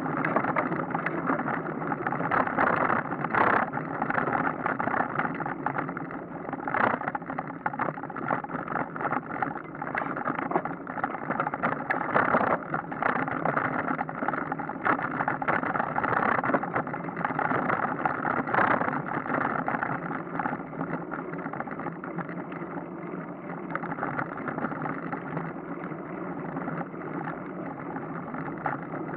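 Steady rushing noise of riding a bicycle: wind across the microphone mixed with tyre and road noise, with a few brief knocks from bumps.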